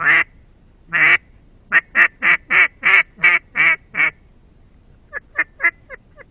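Double-reed ebony duck call (Russian Custom Calls) blown in a run of quacks: two single quacks, then a quick series of about eight, then near the end five shorter, quieter quacks.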